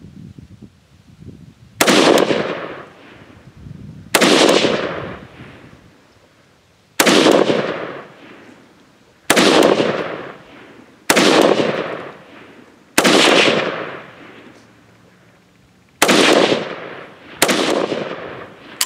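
Eight single shots from a Zastava ZPAP M90PS 5.56 rifle fitted with a compensator, fired one at a time one to three seconds apart, each crack trailing off over about a second. It is a slow string of aimed shots checking a sight adjustment.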